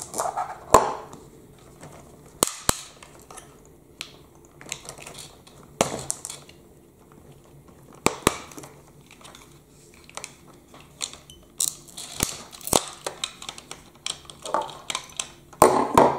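Irregular clicks, knocks and rattles of hard plastic toy parts being handled and set down on a table, with several sharp clicks.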